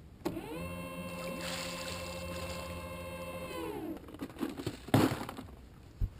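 Electric motor on a bass boat whining up to speed, running steadily for about three seconds, then winding down. A sharp knock follows about a second later, then a duller thud.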